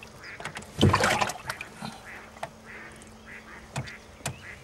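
Ducks quacking repeatedly, short calls a fraction of a second apart. About a second in, water splashes loudly as the pike moves in its tub, and two sharp clicks come near the end.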